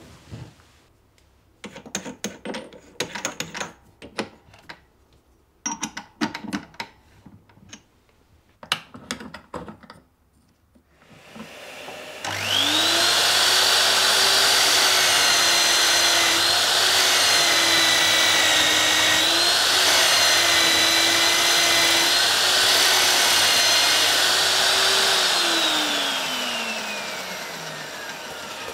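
Small handling clicks and knocks, then an electric drill starts with a rising whine about twelve seconds in. It runs steadily while a Forstner bit bores a hole through plywood, and winds down with a falling whine near the end.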